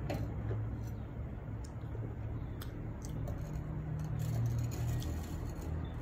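Quiet background: a steady low hum with a few faint, scattered clicks.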